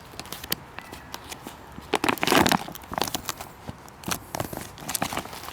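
Thick plastic MRE outer pouch being peeled open at its peelable seal and handled: crinkling and crackling plastic, with a louder tearing rip about two seconds in.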